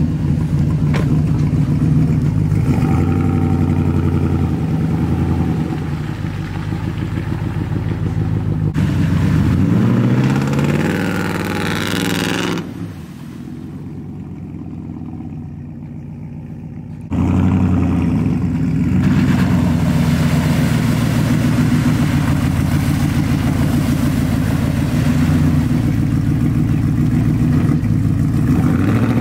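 Lifted Chevy Silverado Z71 pickup's engine running and revving as the truck drives and turns through shallow river water, the pitch rising and falling with the throttle. Partway through, the sound cuts to a quieter, more distant stretch for a few seconds, then the loud engine returns.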